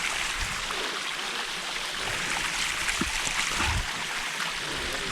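Rushing mountain water, a steady hiss of a stream or waterfall, with a few brief low knocks around the middle.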